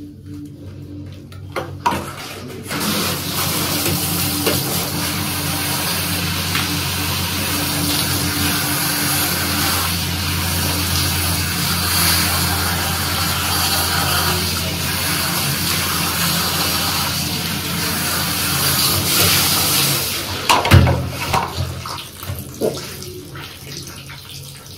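Handheld shower head spraying water onto hair over a bathtub as hair dye is rinsed out. The spray comes on a couple of seconds in, runs steadily, and stops about twenty seconds in. A sharp knock and a few small handling clatters follow.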